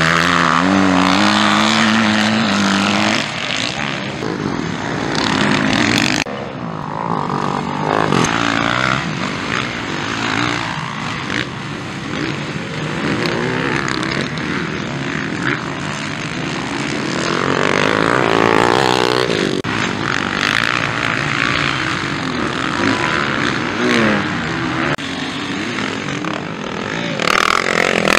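Motocross bikes racing on a dirt track, their engines revving up and dropping back again and again as they accelerate out of corners and pass by.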